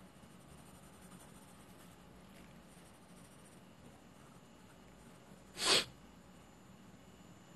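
Graphite pencil scratching faintly across drawing paper. About five and a half seconds in comes a single short, loud rush of breath.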